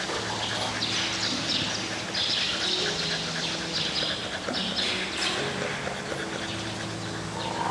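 Dogs penned behind a chain-link fence whining and yipping in many short, high-pitched calls.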